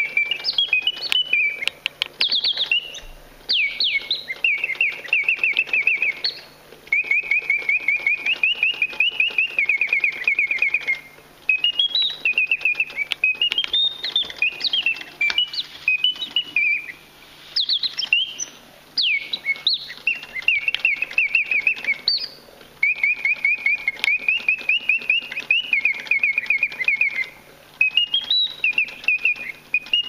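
Antique French Bontems singing-bird automaton: its bellows-blown piston whistle plays repeated warbled birdsong phrases of rising chirps, trills and falling glides, with short pauses every few seconds. Steady clicking of the clockwork mechanism runs underneath.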